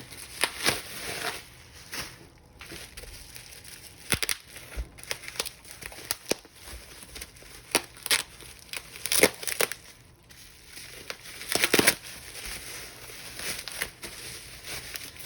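Wrapping paper crinkling and rustling in irregular bursts as a gift is unwrapped by hand, with the loudest crackles a little past the middle.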